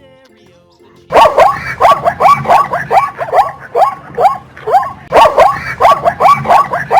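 Zebra's barking call: a fast series of high, yelping barks, about three a second, starting about a second in.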